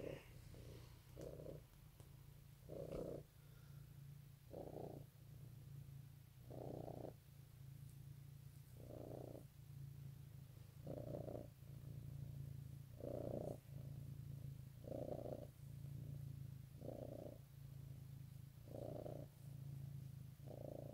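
Domestic cat purring steadily while being stroked, the purr swelling and easing in a regular rhythm about every two seconds.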